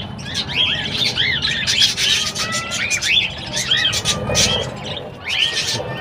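A flock of budgerigars chirping and chattering: many quick, overlapping arched chirps that go on without a break.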